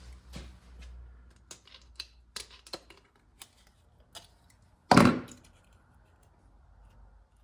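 Scattered plastic clicks and knocks from handling a gas can and a bottle of two-stroke oil while mixing fuel. One loud thump about five seconds in.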